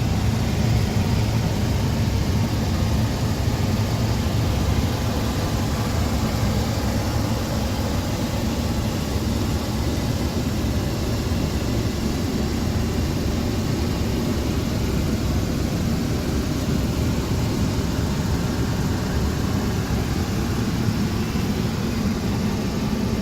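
Steady low mechanical rumble with a hiss over it, unchanging throughout.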